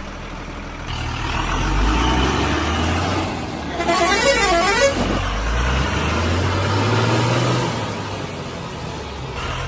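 Heavy diesel engine running and revving up and down several times, with a short warbling tone about four seconds in.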